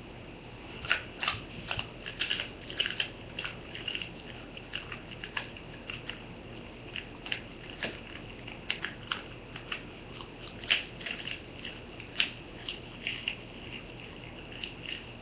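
Small dog chewing and crunching chicken jerky: irregular, quick crunchy clicks, several a second at times, with short pauses.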